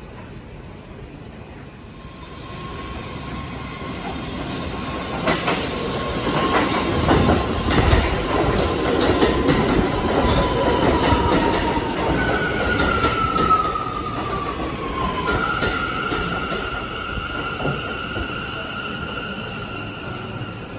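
New York City Subway R179 train pulling into the station and braking to a stop. The rumble and wheel clatter build up as it comes in, a whine falls in pitch as it slows, and a steady high whine holds once it has stopped.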